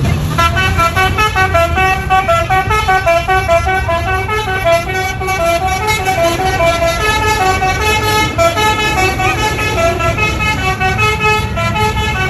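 A bus's telolet horn, a set of electric trumpet horns played as a melody, sounds a rapid run of short notes that step up and down in pitch, with a low rumble underneath.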